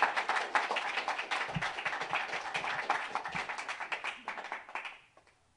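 Audience applauding, many hands clapping at once, dying away about five seconds in. Two dull low thumps sound under the clapping.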